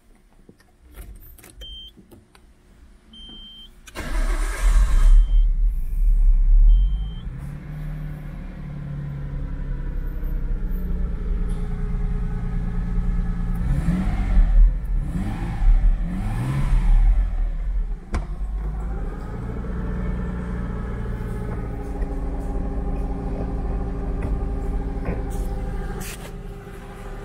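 Nissan Skyline R32's engine being started: a few short beeps, then the engine catches about four seconds in and flares up briefly before settling into a steady idle. Around the middle come a few quick blips of the throttle, rising and falling, before it idles on.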